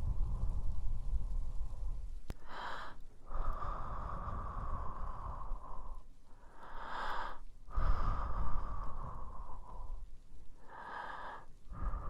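Slow, close breathing and blowing onto the microphone. Long exhales carry a low rumble of air hitting the mic and alternate with shorter, brighter inhales, about three breath cycles in all.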